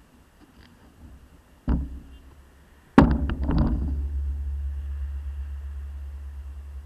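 A knock, then about three seconds in a loud thump with a quick rattle of clicks, as the bicycle-mounted action camera is jolted. A low rumble follows and slowly fades.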